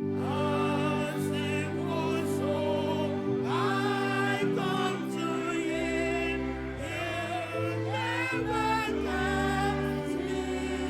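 Church music: voices singing a slow melody with vibrato over sustained low chords that change every second or two.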